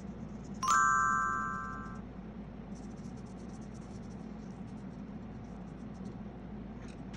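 A bright, bell-like chime sound effect strikes about a second in and rings away over about a second, over a steady low hum. Faint soft scratching of a paintbrush on paper follows.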